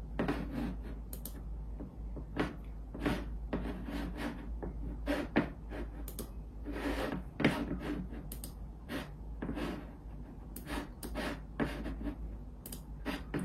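Computer mouse being clicked and slid about on the desk: irregular short clicks and brief scrapes, heard over a steady low hum.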